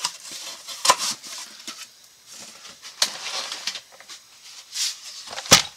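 Hand tools and their cases being handled and set down: a few sharp knocks, the loudest near the end, with rustling in between.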